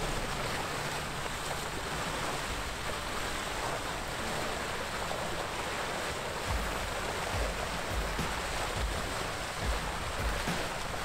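Water rushing steadily along the hull of a sailboat under way in calm water. From about six seconds in there are short low gusts of wind on the microphone.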